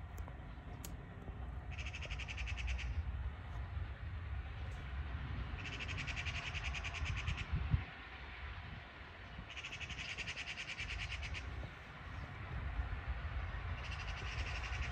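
A small bird giving a rapid, high trill of about one to two seconds, repeated four times at roughly four-second intervals, over a steady low rumble.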